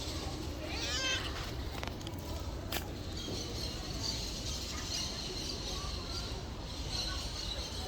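A domestic cat meows once, about a second in, over steady background noise. There is a single sharp click a little before three seconds.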